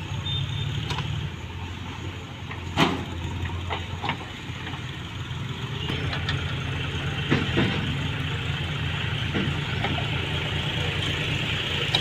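JCB 3DX backhoe loader's diesel engine running steadily, with a few sharp knocks from the machine at work, the loudest about three seconds in.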